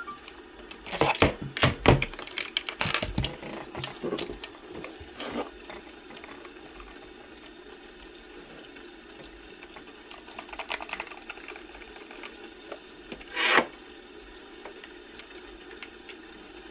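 Computer keyboard typing: quick bursts of key clicks, densest in the first few seconds, then a few scattered keystrokes, with a single louder, slightly longer clack near the end over a steady low room hum.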